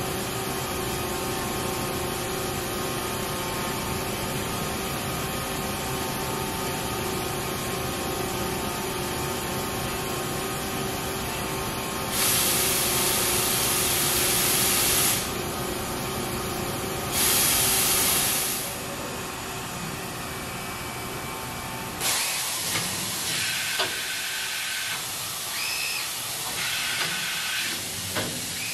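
Mori Seiki NT6600 CNC turning center running, with the steady hum of its pumps and drives after the spindle has stopped. Two blasts of compressed air come midway, the first about three seconds long and the second shorter, around the swung-out tool-setter arm. Short whining tones from the axis motors follow near the end.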